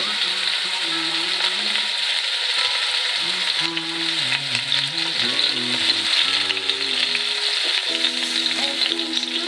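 Bacon-wrapped pork roast sizzling steadily as it sears in hot oil in an enameled cast-iron Dutch oven. A soft melody plays underneath.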